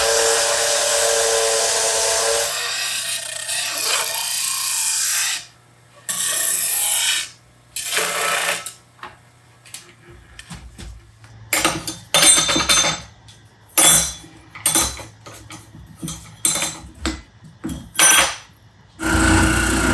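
Woodworking tools cutting and shaping thin walnut sheet. A power tool runs steadily at first and winds down after a few seconds. A string of short cutting and rubbing strokes follows, and a power tool starts up again loudly near the end.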